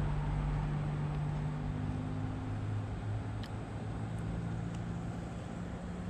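A motor running steadily with a low hum, its pitch shifting slightly about a second and a half in and again near five seconds, with a few faint ticks around the middle.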